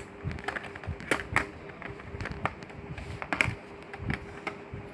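Small plastic toy furniture, a miniature piano, clicking and tapping against a plastic playset floor as it is handled and set in place: irregular light clicks, several a second.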